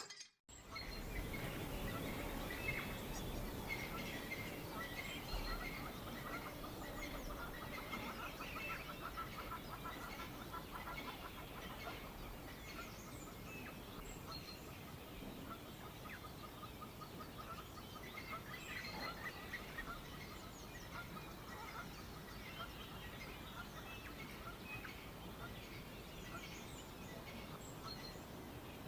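Many small birds chirping and calling, with a fast trill of repeated notes for several seconds around the middle, over a steady background hiss of wind and insects.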